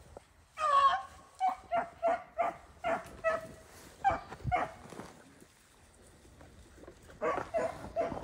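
Beagle hound baying: a long wavering bay, then a quick run of short barks, then a pause and another bout of barking near the end.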